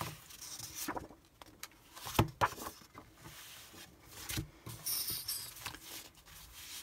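Sheets of designer series paper being shuffled and slid over one another by hand, with scattered light taps and a brief papery swish about five seconds in.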